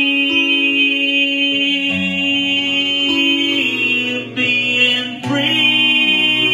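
A man singing a country ballad and strumming an acoustic guitar, holding long notes.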